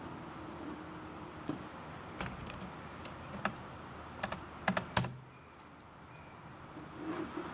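Laptop keyboard keys being tapped: sharp clicks in small quick groups from about two to five seconds in, the loudest near the end of the run.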